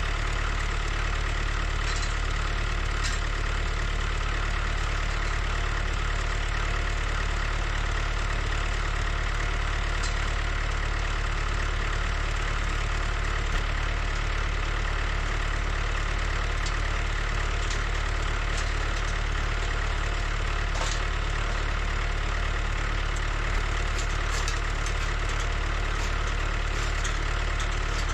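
Old tractor's engine running steadily, with a few faint clicks and knocks over the top.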